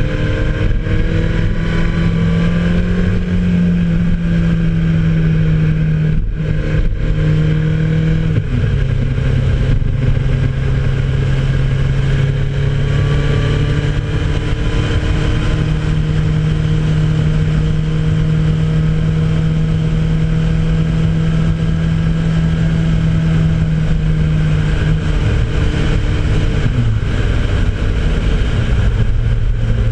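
Engine of the vehicle carrying the camera, running steadily under way at road speed. Its note dips briefly about six seconds in, settles lower, and steps down again near the end.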